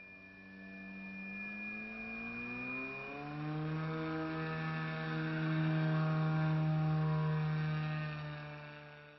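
Electric motor and propeller of a foam RC jet. It climbs in pitch over the first few seconds as the throttle opens, then runs at a steady high pitch and grows louder.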